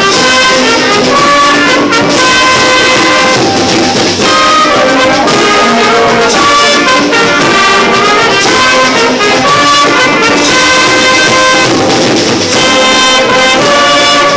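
Student trumpets playing a melody in held, stepping notes, backed by marching drums and hand cymbals.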